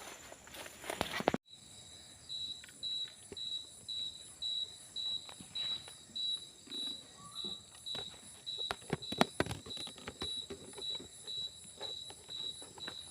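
A cricket chirping in a steady high pulse, a little over two chirps a second, with a fainter continuous insect whine behind it. Scattered knocks and rustles come through, loudest around the middle, after a burst of rustling that cuts off suddenly in the first second and a half.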